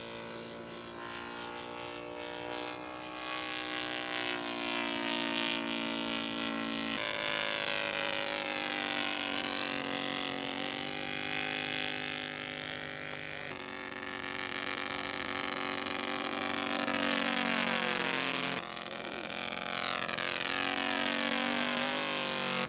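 Laser 300 V-twin four-stroke engine of a radio-controlled scale Fokker D-VII in flight, running steadily with its pitch rising and falling as the plane passes and the throttle changes. There are a few abrupt jumps in the sound.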